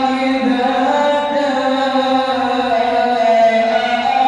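Male reciter chanting the Quran in a melodic tajweed style, drawing out one long held note that steps between a few pitches.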